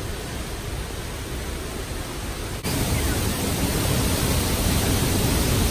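Waterfall plunging into a pool: a steady rushing of falling water that turns suddenly louder and fuller about two and a half seconds in.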